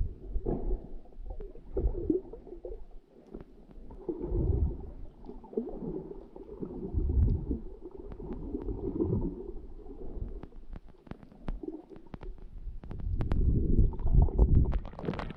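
Muffled underwater sound through a submerged camera's housing: low rumbling surges of moving water, coming every two seconds or so as the swimmer strokes, with scattered sharp ticks.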